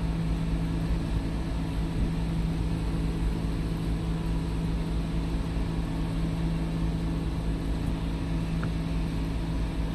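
Steady low machine hum with a constant drone and a low rumble beneath, unchanging throughout.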